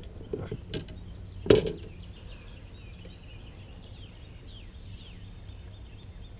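A single sharp knock on the kayak about a second and a half in, as a just-caught crappie is handled aboard. Faint bird chirps follow.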